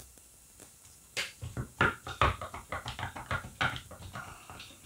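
Irregular metal clicks and knocks, about a dozen between a second in and near the end, as the housing and rotor of a small brushed permanent-magnet DC motor are worked loose by hand.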